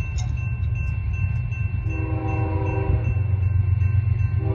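Approaching freight train's locomotive air horn sounding a chord: one blast about two seconds in, lasting about a second, then a second blast starting near the end, over a steady low rumble.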